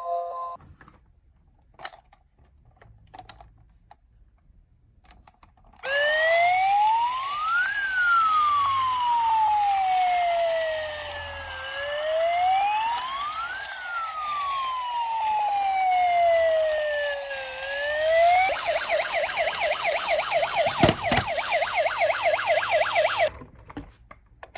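A toy police car minicar's electronic siren. After a few seconds of quiet with faint clicks, it starts with a slow wail rising and falling about two and a half times, then switches to a fast yelp for about five seconds and cuts off suddenly. A sharp click sounds partway through the yelp.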